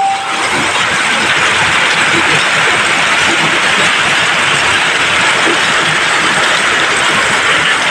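Hail falling hard with heavy rain, hailstones pelting the ground, walls and roofs in a dense, steady clatter of many small impacts.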